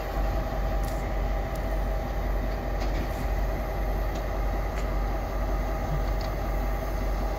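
Pair of diesel locomotives moving slowly with a short string of freight cars, their engines running with a steady low rumble.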